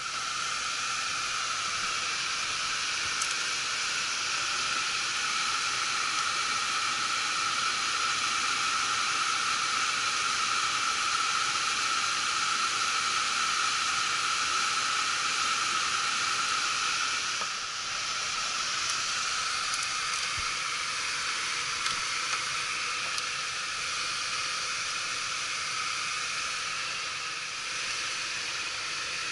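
Heat pump air handler's blower running steadily with its access door off: a constant rush of air with a faint tone in it.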